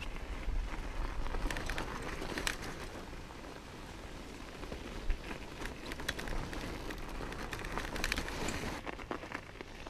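Mountain bike tires crunching over snow and ice on a trail climb, with a low rumble and sharp crackles now and then.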